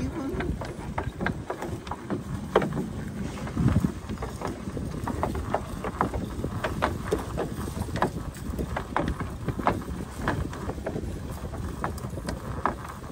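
Wind buffeting the microphone aboard a small open fishing boat at sea, over a steady low rumble, with irregular sharp knocks and slaps.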